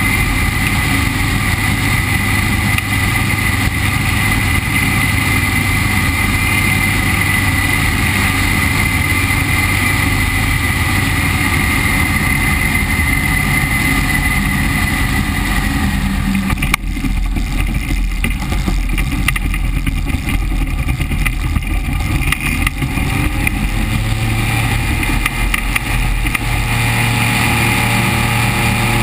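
SeaRey amphibian's engine droning steadily with wind rush on the outside camera as the plane skims low over the water on approach to a water landing. The engine note dips just past halfway, and a rising tone with a stronger low hum comes in near the end.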